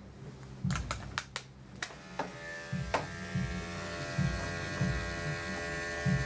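A few clicks, then corded electric grooming clippers start about two seconds in and run with a steady buzzing hum while shaving the fur on a cat's belly.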